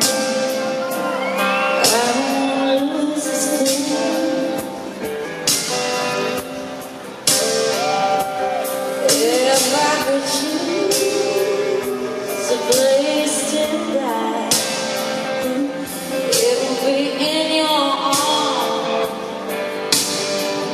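Live concert music: a woman singing a slow, gliding melody over band accompaniment, in the ring of a large hall.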